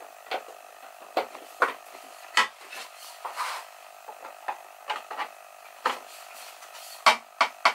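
Irregular light wooden knocks and rubs as the hinged pallet-wood doors of a small cabinet are handled and swung open, over a faint steady hum. Two sharper knocks come close together near the end.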